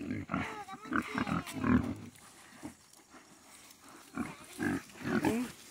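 Several young pigs grunting as they root in pasture grass: a quick run of short grunts in the first two seconds, a lull, then more grunts near the end.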